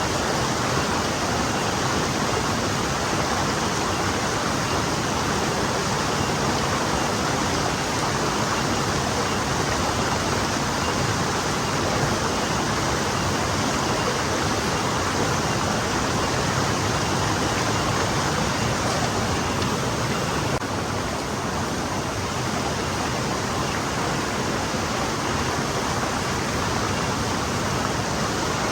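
Gentle forest stream flowing steadily, an even rushing of water over stones. About two-thirds of the way through the hiss in the upper range drops a little.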